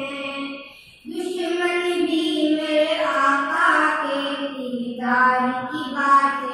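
A boy singing a naat, an Islamic devotional song in praise of the Prophet, in long held notes that slide in pitch, with a short breath pause about a second in.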